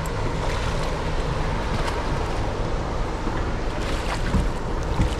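Wind on the microphone and water lapping against a small boat's hull, with splashes about four seconds in as a hooked Spanish mackerel thrashes at the surface beside the boat.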